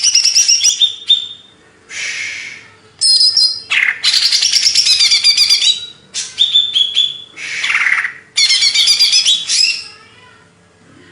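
Cucak ijo (leafbird) singing in loud, fast bursts of varied trills, whistles and sweeping notes, phrases of one to two seconds with short breaks. It falls quiet about ten seconds in.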